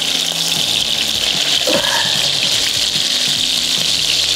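Bacon-wrapped turkey liver skewers sizzling steadily in hot, foaming butter and bacon fat in a frying pan.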